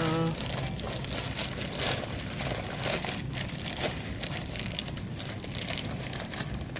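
Plastic bag of dried pinto beans crinkling and crackling irregularly as it is handled and turned over.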